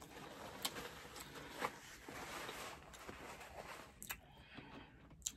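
Faint rustling of a paper towel as hands are wiped on it, with a few soft, sharp clicks.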